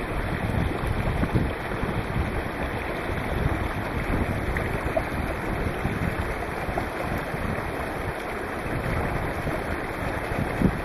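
Small stream rushing steadily over a low rocky cascade, with gusts of wind rumbling on the microphone.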